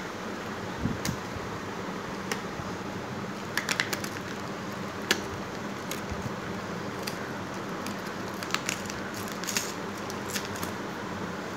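Cardboard chocolate gift box being handled and opened by hand: scattered sharp clicks and taps as the flaps and inner tray are moved, over a steady background hiss. The clicks bunch together about four seconds in and again near the end.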